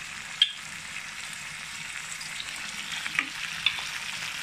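Green peas, cashews and whole spices sizzling steadily in hot oil in a nonstick kadhai on full flame, stirred with a wooden spatula. A few sharp clicks break the sizzle, the loudest about half a second in.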